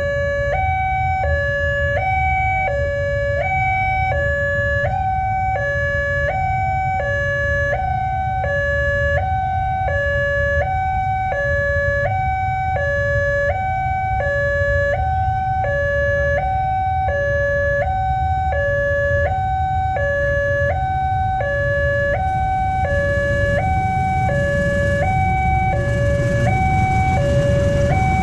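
Electronic two-tone warning siren of a railway level crossing sounding from a horn loudspeaker, alternating a higher and a lower tone about once a second, over the low rumble of idling motorcycle engines. Near the end the noise of an approaching diesel train rises under the siren.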